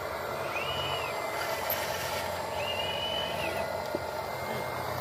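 Radio-controlled model excavators at work: a steady whir of small motors and gearing, with two whines that rise, hold and fall back as a motor spins up and down, the first short and the second about a second long.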